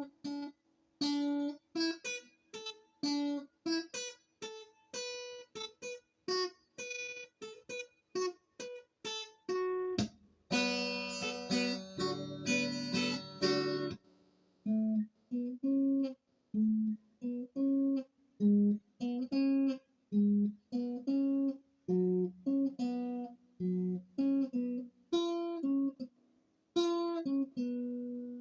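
Acoustic guitar playing an instrumental passage of single picked notes, each cut off short with brief gaps between them. About ten seconds in there are a few seconds of strummed chords, then the picked notes resume.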